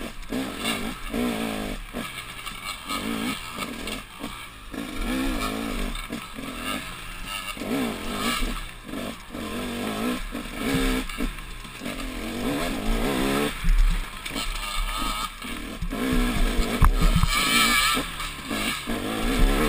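Dirt bike engine being ridden hard, revving up and easing off again and again as the rider works the throttle and gears.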